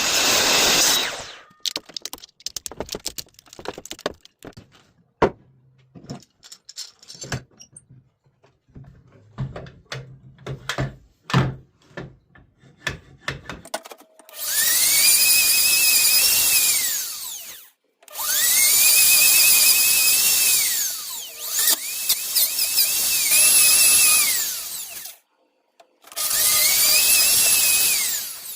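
Scattered short knocks and taps, then from about halfway a power drill runs four times, a few seconds each, spinning up to speed, holding, and winding down. A loud noisy tool sound stops in the first couple of seconds.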